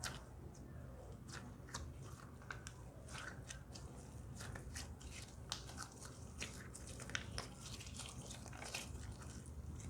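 Slime being squished and mixed by hand, making irregular sticky clicks and small pops.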